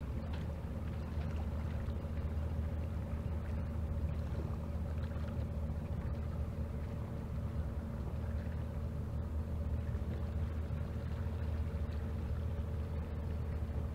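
Fishing boat's engine running steadily, a constant low drone with a few steady hum tones, as picked up underwater by a hydrophone.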